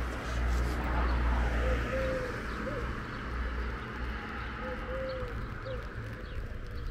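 A dove cooing twice, each time a three-note phrase with the middle note the longest, about three seconds apart, over a low steady rumble.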